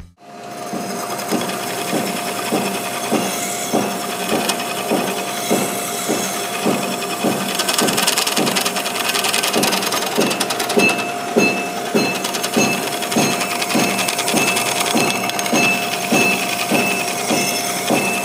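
Drill press running with a steady whine while a flat file is stroked against a spinning copper tube, about two filing strokes a second, turning down the tube's outside diameter.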